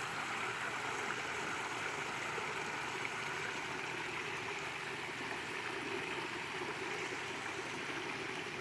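Water running steadily at a garden fish pond, an even trickling flow with no breaks.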